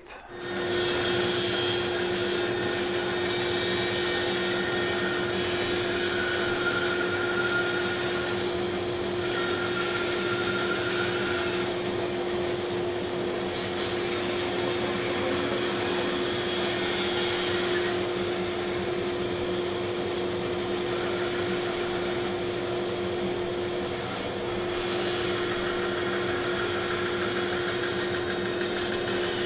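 Small bandsaw running and cutting a thick green-wood bowl blank: a steady whir with a constant tone that comes up to full level within the first moment.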